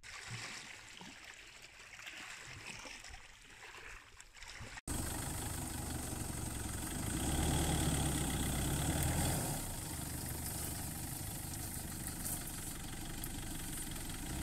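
Faint quiet for the first five seconds, then, after an abrupt cut, the pickup truck's engine idling steadily, a little louder for a couple of seconds in the middle.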